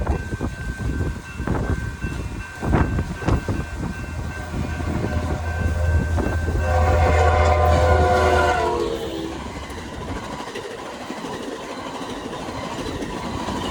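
Train passing close by a grade crossing: wheels clacking over the rails, then the locomotive horn sounding a loud multi-note chord for about four seconds near the middle over a heavy low engine rumble, its pitch dropping at the end as it goes by.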